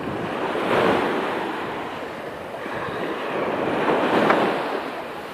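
Sea waves breaking and washing in, swelling twice, about a second in and again about four seconds in.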